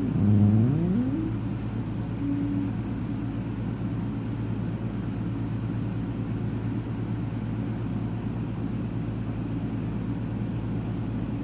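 A cat purring, a low steady rumble, with a short rising trill in the first second and a brief held note about two seconds in.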